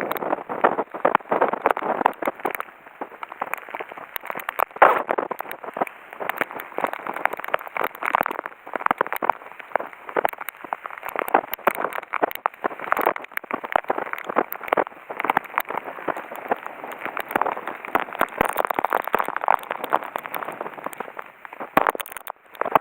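Heavy typhoon rain pelting down: a dense, continuous crackling patter that swells and eases in gusts.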